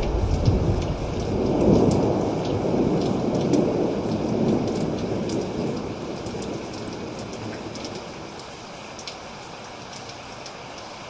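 Rain falling steadily, with fine drop ticks, under rolling thunder. The thunder rumbles low, swells again a couple of seconds in, then dies away over the next several seconds, leaving the rain.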